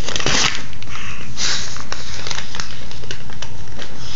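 A paper flyer rustling and crinkling in short bursts as a baby grabs and handles it.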